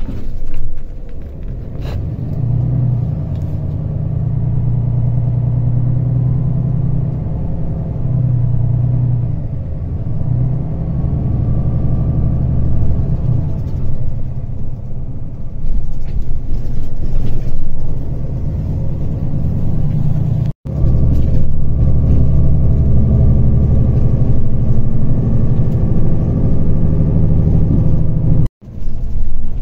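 Steady low road and engine rumble of a moving vehicle heard from inside its cabin, cutting out briefly twice in the second half.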